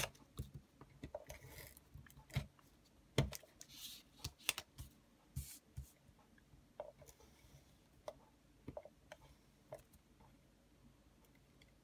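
Handheld Fast Fuse adhesive tape-runner dispenser being pressed and drawn along small strips of cardstock paper: several short rasps with sharp clicks and taps, mostly in the first half, then sparser light clicks as the paper is handled.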